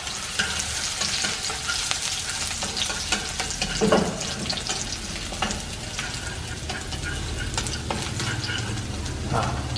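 Minced shallots sizzling as they fry in a small pan, a steady hiss with fine crackling, stirred with wooden chopsticks. One brief louder sound about four seconds in.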